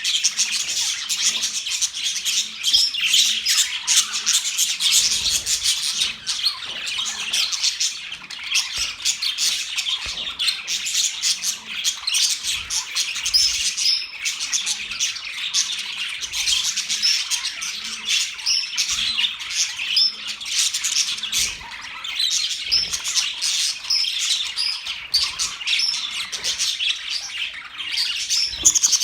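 Many budgerigars chirping and chattering without a break, several calling over one another.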